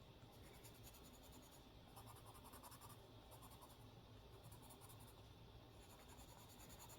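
Faint scratching of a Prang colored pencil shading on paper, steady back-and-forth strokes.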